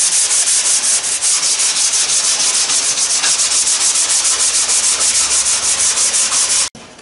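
Dry 220-grit sandpaper rubbed by hand over the wood strips of a cedar-strip kayak model's deck, in quick, even back-and-forth strokes, several a second. This is the final hand sanding before the epoxy coat. The strokes cut off abruptly shortly before the end.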